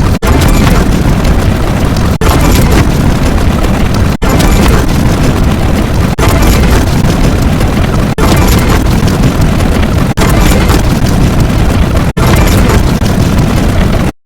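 A run of loud, rumbling, explosion-like sound effects, a new one starting about every two seconds with a brief break between them. It cuts off abruptly at the very end.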